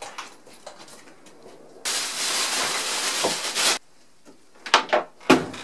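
Aerosol spray can hissing in one steady burst of about two seconds that starts and stops sharply, among light knocks and clicks of things being handled and set down.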